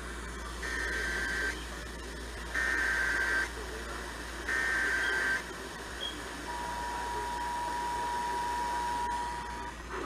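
Emergency Alert System tones heard from a radio speaker: three bursts of SAME header data tones, each about a second long and a second apart, then the two-tone attention signal from about six and a half seconds in, held steady for about three seconds. They signal the start of a broadcast Flash Flood Warning.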